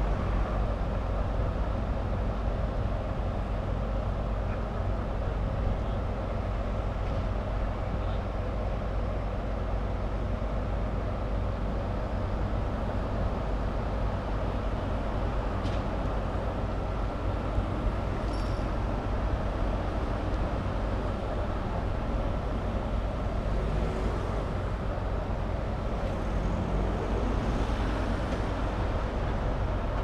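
Heavy diesel engine of a Liebherr LTM 1500-8.1 mobile crane running steadily, a low unbroken rumble with a faint steady whine above it and a few faint light clinks.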